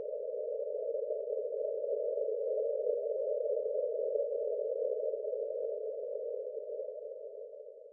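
Breathing-exercise pacing sound: a soft, narrow whoosh of filtered noise that swells slowly and then fades away near the end, marking one slow breath.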